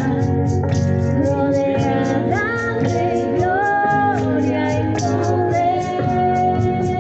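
A worship song: a woman singing, held and gliding notes, over guitar and a steady beat ticking about three times a second.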